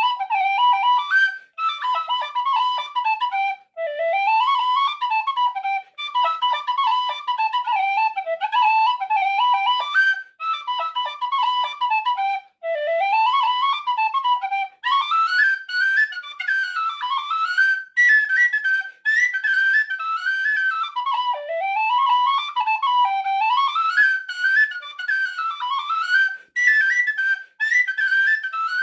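Solo D tin whistle (a Lir whistle) playing an Irish reel in G major: a single fast melodic line of quick ornamented notes with short breath breaks every few seconds, climbing into the upper octave about halfway through.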